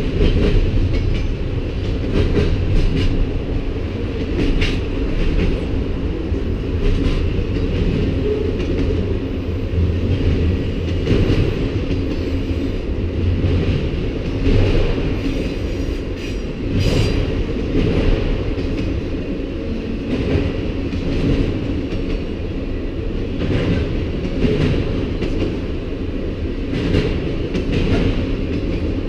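Freight cars of a CN manifest train rolling past: a steady low rumble of steel wheels on rail, with irregular clicks and clunks every few seconds.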